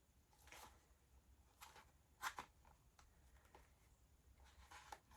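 Faint rustling and light clicks of cosmetic boxes and packaging being handled, with one sharper click a little over two seconds in.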